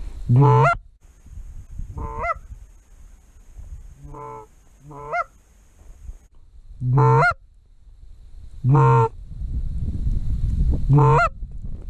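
Canada goose honks: about seven separate honks, a second or two apart, several of them loud and close.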